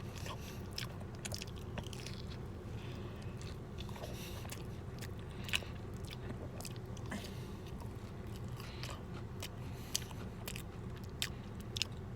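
A person chewing a mouthful of steak grilled cheese burrito, with scattered wet mouth clicks and smacks and a few sharper clicks.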